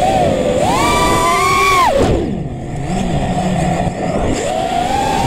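Racing quadcopter's brushless motors and propellers whining. The pitch climbs and holds high under throttle, drops sharply about two seconds in as the throttle is cut, then rises again near the end, over steady rushing air noise.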